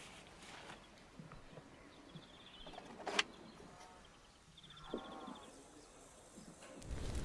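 Faint outdoor ambience with a bird trilling twice in quick runs of notes and a single sharp click about three seconds in. Just before the end, a louder rush with crackling from a wood fire comes in.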